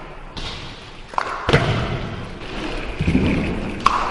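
BMX bike landing and rolling on a concrete floor: a few hard thuds of tyres and frame hitting down, echoing in a large empty hall.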